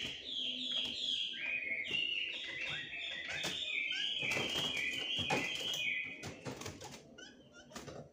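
Chinese hwamei (melodious laughingthrush) singing a fast run of repeated whistled notes, each slurring downward, about three a second, breaking off about six seconds in. Sharp clicks and flutters of a caged bird hopping and flapping come through the middle and the end.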